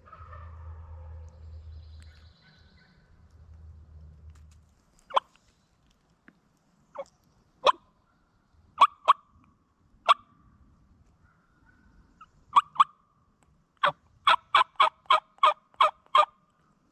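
Wild turkey hen cutting: sharp, abrupt clucks, first single and in pairs, then a fast run of about nine near the end, the loudest part. A low rumble in the first few seconds.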